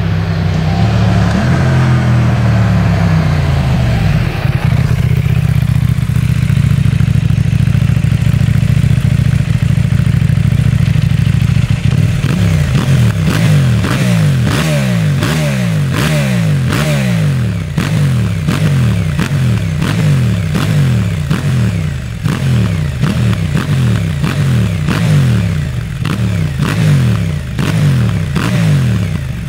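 KTM 790 Duke parallel-twin through an Akrapovič exhaust: the revs fall away at first, then the engine idles steadily. About two-fifths of the way in it is revved over and over, the revs climbing and cutting back roughly once or twice a second, with a sharp crackle at each cut.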